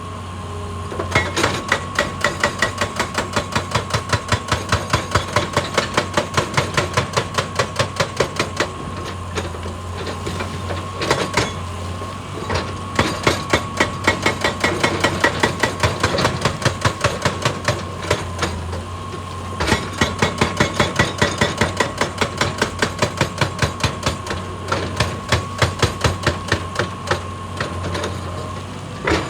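Excavator-mounted hydraulic rock breaker hammering rock: rapid, evenly spaced blows, several a second, in runs of several seconds with brief pauses between them, over the steady drone of the excavator's diesel engine.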